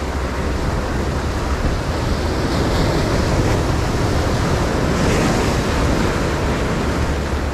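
Sea surf breaking and washing over shore rocks, with wind rumbling on the microphone.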